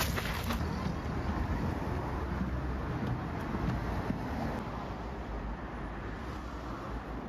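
Steady low outdoor rumble with a hiss above it, easing off gradually over the last few seconds.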